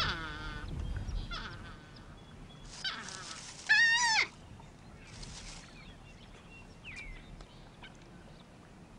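North American porcupines calling during a dominance dispute: several wavering, whining cries, the loudest about four seconds in, followed by a few faint clicks.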